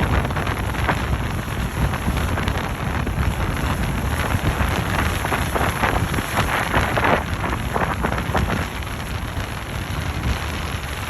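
Wind buffeting the microphone with a steady rushing, crackling noise underneath.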